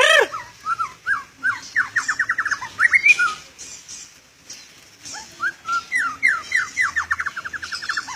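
Oriental magpie-robin (kacer) singing loudly in two phrases. Each phrase is a run of quick down-slurred notes that speeds into a fast trill, with a pause of about two seconds between the phrases.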